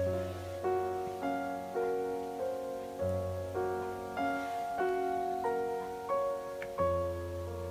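Gentle background piano music: a slow melody of notes a half second or so apart over deep bass notes held several seconds each.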